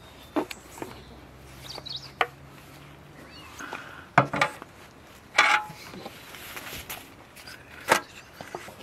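A large metal tray and kitchen things being handled on a wooden table: several sharp knocks and clinks and a brief scrape about halfway through. Birds chirp faintly.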